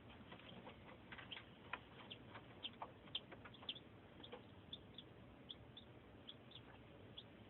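Newly hatched domestic chicks peeping: a quick, irregular string of short, high peeps, thickest in the first few seconds and sparser after.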